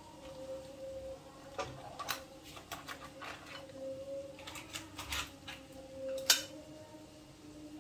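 Metal kitchen tongs clacking and boiled mud crab shells knocking against a frying pan and a serving bowl as the crabs are moved into the pan, in scattered sharp clicks with the loudest knock about six seconds in. A low steady hum runs underneath.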